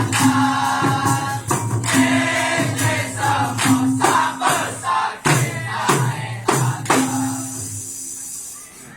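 Dikir barat ensemble performing: a group singing in chorus over repeated hand-percussion strikes, the sound dying away near the end.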